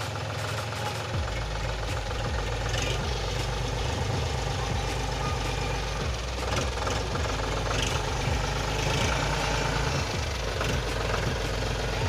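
John Deere 5045 D tractor's three-cylinder diesel engine running steadily as the tractor drives slowly forward; its low rumble fills out about a second in.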